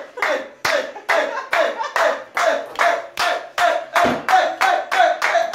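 A group clapping hands in a steady rhythm, about four claps a second, to cheer on someone chugging a beer. A held, shouted note grows under the claps near the end.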